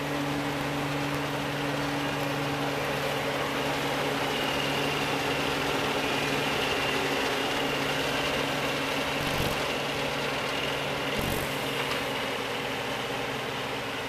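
Claas Mega Dominator 202 combine harvester running under load while harvesting grain: a steady diesel engine drone with the machinery's hum, a faint high whine through the middle, and two brief knocks in the second half.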